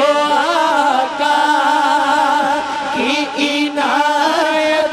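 Naat recitation: a singing voice holds a long, drawn-out note that wavers in pitch, with a short bend in the melody near the end.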